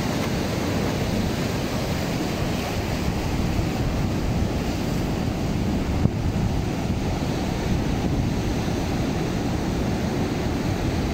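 Ocean surf breaking and washing over a rocky shore ledge in a steady rush, with wind buffeting the microphone.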